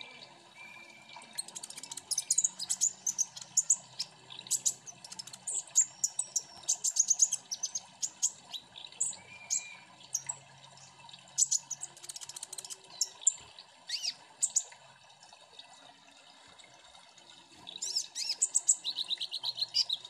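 Van Hasselt's sunbirds (kolibri ninja) singing together: rapid, high, thin chirps and twittering trills in dense bursts. The song drops away about three quarters through, then starts up again near the end.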